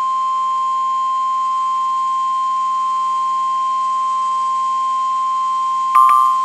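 NOAA Weather Radio's 1050 Hz warning alarm tone: one steady high-pitched tone, sounding ahead of a tornado warning broadcast. Near the end a click and a short, slightly higher beep cut in briefly over it.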